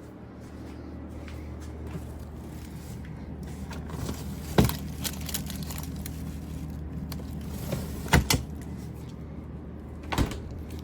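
A steady low mechanical hum, with a few sharp knocks: one about four and a half seconds in, a quick double about eight seconds in, and one near the end.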